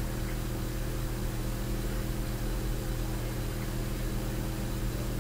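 Steady low electrical hum with an even hiss, unchanging throughout; no music or other events.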